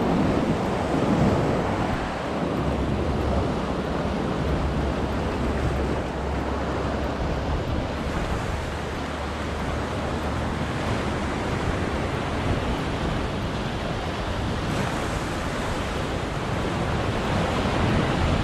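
Sea waves surging and washing over shore rocks in a steady wash of surf, with wind buffeting the microphone as a low rumble.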